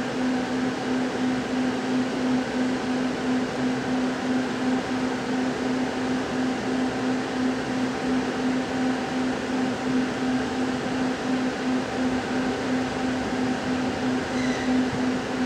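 Steady hum of a passenger train carriage's onboard equipment while the train stands at the platform, heard from inside the carriage, with one strong low tone that pulses gently. A brief faint high-pitched tone sounds near the end.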